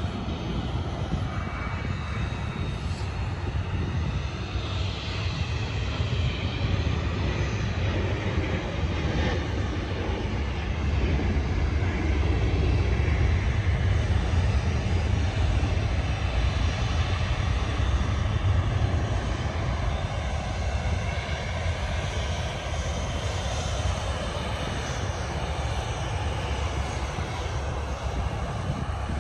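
Boeing 737 jet engines running as the airliners taxi, a steady rumble with a hiss above it. It swells for several seconds in the middle, then eases off.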